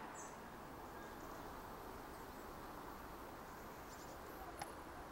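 Faint outdoor background hiss with a few brief high chirps and one sharp click a little over four and a half seconds in.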